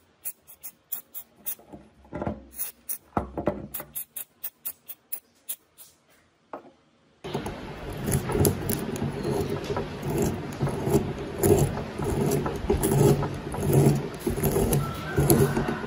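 Small metal bench vise being handled: scattered clicks and knocks of its metal parts on a wooden table, then from about seven seconds a continuous scraping grind as the vise screw is turned by its handle through its threads.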